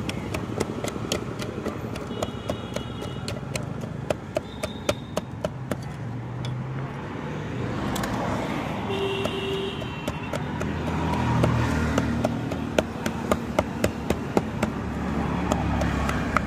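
Wooden pestle mashing wood apple pulp in a steel bowl, tapping against the metal in quick, irregular knocks, with a lull in the middle. Steady traffic noise runs behind.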